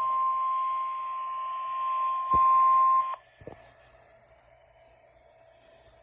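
Steady single-pitched alert tone near 1 kHz from a NOAA weather radio broadcast, heard through the radio's small speaker. It jumps louder with a click a little over two seconds in, then cuts off suddenly about three seconds in, leaving faint hiss and a small click.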